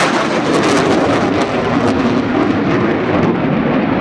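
Panavia Tornado's twin RB199 turbofans in afterburner during a low, fast pass: a loud, steady jet roar with crackling that thins out after about two seconds as the jet pulls away.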